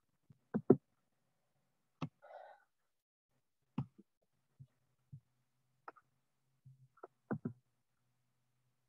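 Computer mouse clicks while switching between windows: a scattering of short sharp clicks, some in quick pairs like double-clicks, over a faint low hum.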